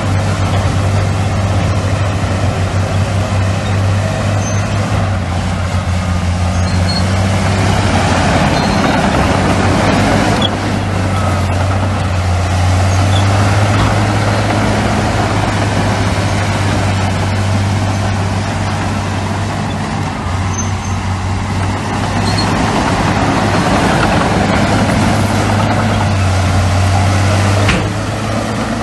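Heavy diesel earthmoving machinery running steadily with a low engine hum, swelling louder a few times and dropping off sharply near the end.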